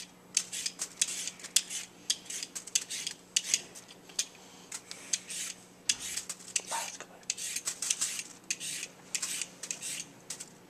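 A hand vegetable peeler scraping down a raw carrot in quick, uneven repeated strokes, each a short rasp as a strip of peel comes off.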